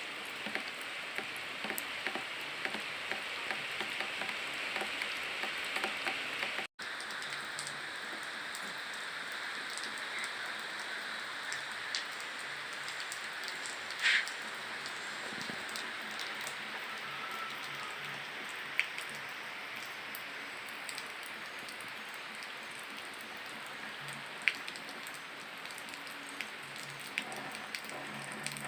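Steady rain falling on surfaces, with many small drop ticks and a few louder single drips. The sound drops out for an instant about seven seconds in.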